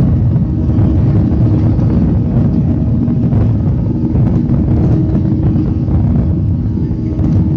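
Airplane taking off, its engines running loud and steady with a deep rumble and a constant hum.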